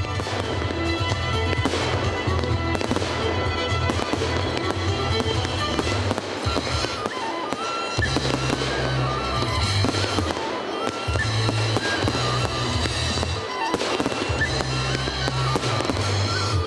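Fireworks display going off, with many sharp bangs and crackles from bursting shells over steady music with a pulsing bass line.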